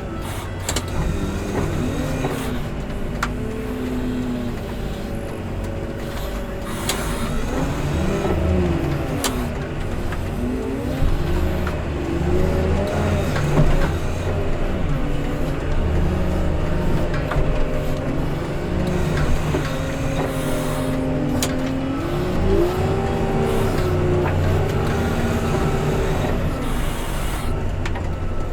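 Diesel engine of a heavy snow-removal machine working, its pitch rising and falling every few seconds as it revs up and down under load, with scattered knocks and clatter.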